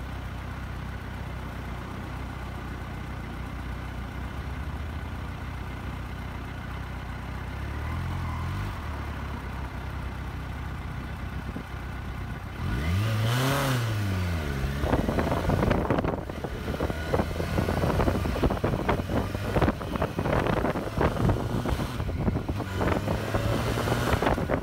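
2014 Kawasaki Versys 1000's inline-four engine idling at a standstill, with a brief light throttle blip about a third of the way in. About halfway through it pulls away, the revs rising and then falling through a gear change. It then runs on under way, with wind buffeting the microphone.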